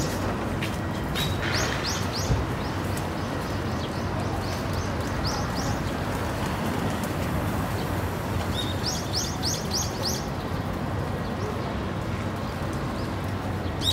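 Small birds chirping: short runs of quick, high notes about a second and a half in, again around four to five seconds, and a longer run around nine seconds, over a steady background rush.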